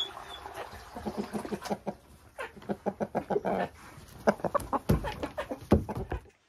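Several hens clucking close by in quick, short calls, with a couple of low thumps near the end.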